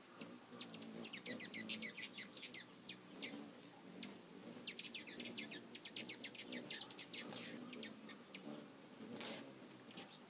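Several hummingbirds chattering as they squabble around a nectar feeder: fast runs of sharp, very high chips in two long bursts, with a thin high whine and scattered chips later on.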